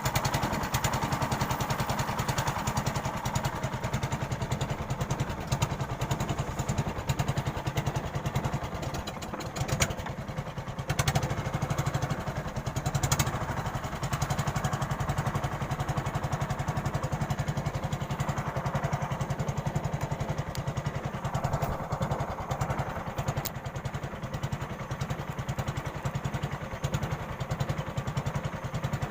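A small engine running steadily, with a fast, even throb.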